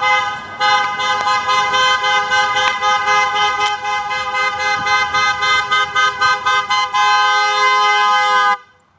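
Car horn honked in rapid short toots, about four a second, then held in one long blast for about a second and a half before cutting off shortly before the end.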